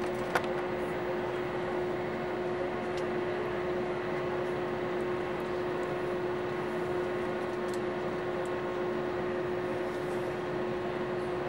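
Steady cabin noise inside an Airbus A321neo taxiing: the even hum of the engines at idle and the cabin air, with a constant mid-pitched tone running through it. A single sharp click about half a second in.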